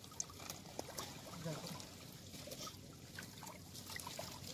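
Faint trickling and small splashes of shallow muddy water as a fishing net is worked by hand, with scattered light ticks and drips. A voice is heard briefly about a second and a half in.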